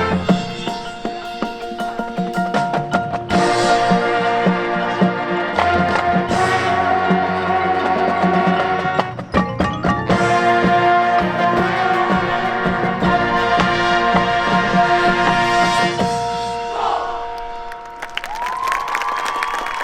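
High school marching band playing the end of its show: brass chords over drums and front-ensemble mallet percussion, with a brief break about nine seconds in. The music ends and rings off about sixteen seconds in, and applause starts near the end.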